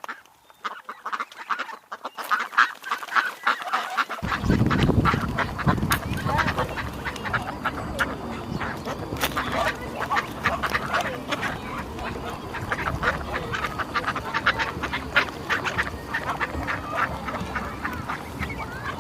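A flock of ducks quacking, many calls overlapping without a break. About four seconds in, a steady low rumbling noise comes in under the calls.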